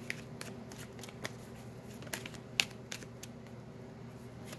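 A deck of tarot cards shuffled by hand: soft, irregular papery clicks and flicks, with a handful of sharper snaps.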